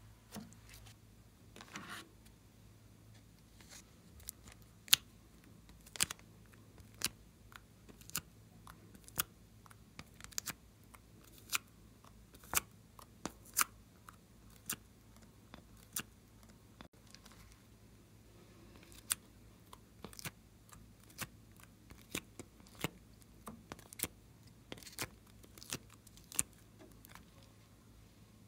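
Sharp light clicks and taps, roughly one a second, from fingers handling a plastic heart mold and pressing small pieces of modelling clay onto slime in a glass dish.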